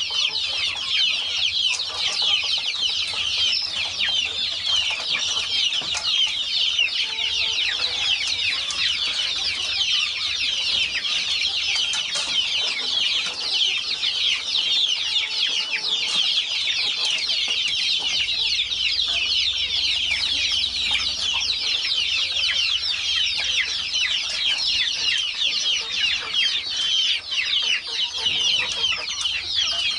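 Many chickens calling at once: a dense, continuous, high-pitched cheeping and clucking from the flock.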